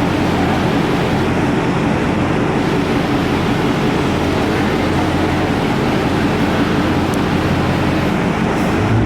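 Dodge Charger engine idling steadily through its stock exhaust, with the catalytic-converter mid-pipes still fitted.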